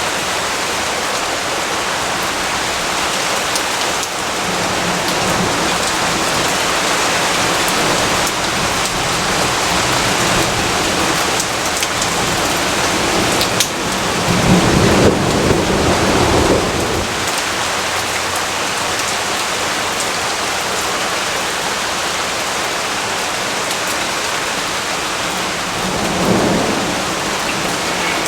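Steady heavy rainfall with thunder. A sharp crack about halfway through leads into a low rumble lasting a few seconds, and a smaller rumble comes near the end.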